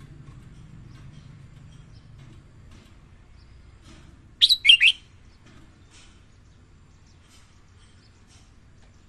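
Red-whiskered bulbul singing one short, loud phrase of about three quick sliding notes, about halfway through. Faint scattered chirps come before and after it.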